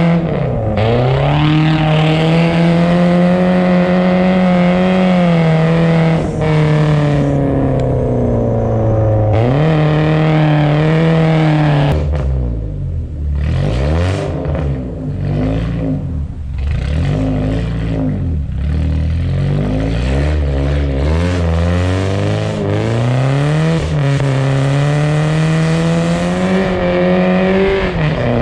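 BMW car engine revving hard while drifting on ice, its pitch swinging up and down as the throttle is worked. About twelve seconds in the revs drop into a choppier, uneven stretch for several seconds, then climb steadily again.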